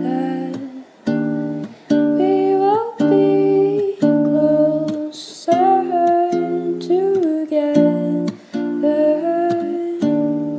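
Background music: a mellow plucked-guitar track with chords struck about once a second and a melody line that slides between notes.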